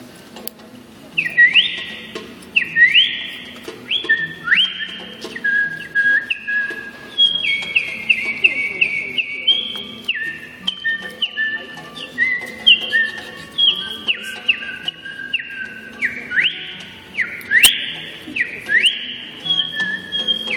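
Whistled imitation of birdsong: a long run of quick chirping notes, many sweeping sharply upward, with some short held notes between them.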